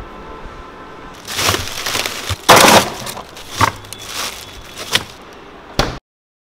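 Plastic bags of portioned cooked chicken rustling, crinkling and knocking as they are pushed by hand into a freezer, with the loudest crinkle about two and a half seconds in and a sharp knock near the end.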